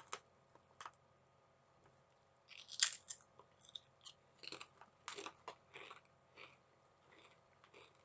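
Someone biting and chewing sweet chili potato crisps close to the microphone: a few light crunches, a loud bite about three seconds in, then a run of crunchy chewing.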